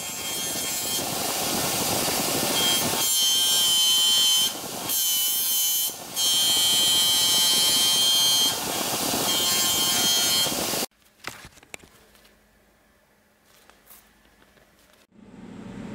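Bench grinder wheel spinning while a brass strip is ground against it: a loud grinding hiss with a high ringing whine that comes in while the metal is pressed on, easing off briefly twice. About eleven seconds in it cuts off suddenly, leaving a faint hum and a few light clicks.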